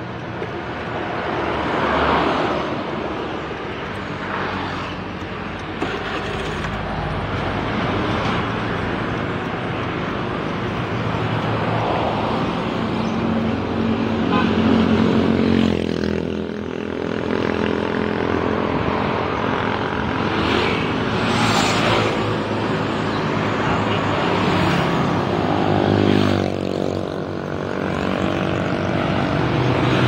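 Motorcycle engine running with passing road traffic; the engine tones rise and fall several times.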